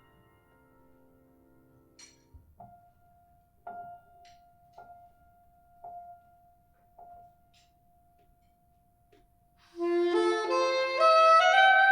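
Soprano saxophone and piano playing a slow jazz ballad. Quiet piano chords die away, a soft single note is held with light strikes about once a second, then near the end the soprano saxophone comes in loudly with a rising phrase.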